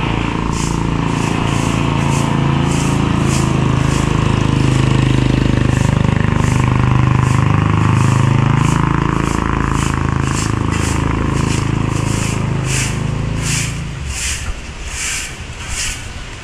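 A broom sweeping pavement in steady swishing strokes, about two a second, over the steady drone of a heavy engine that dies away about fourteen seconds in.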